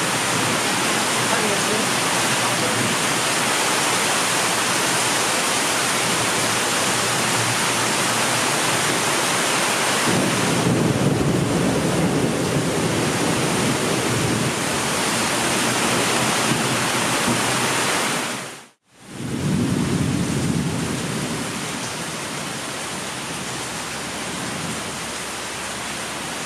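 Heavy thunderstorm rain pouring steadily, with a low rumble of thunder swelling about ten seconds in and another shortly after the sound drops out for a moment about two-thirds through. The rain is lighter near the end.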